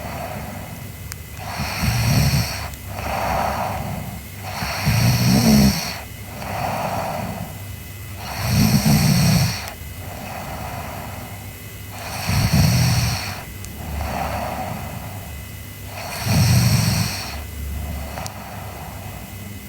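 A sleeping girl snoring in a slow, regular rhythm: five loud snores about every three and a half to four seconds, each followed by a softer breath.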